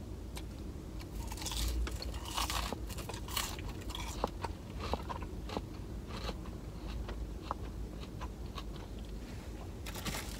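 A person biting and chewing a crunchy thick-cut French fry dipped in ranch: many crisp crunches, loudest about two to three seconds in.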